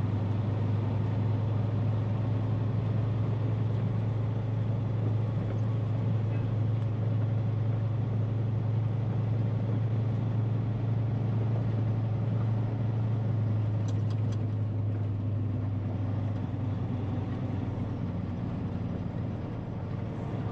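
Diesel engine of a heavily loaded dump truck running at a steady, unchanging pitch as it pulls along, with a few faint ticks about fourteen seconds in. The drone eases off slightly near the end.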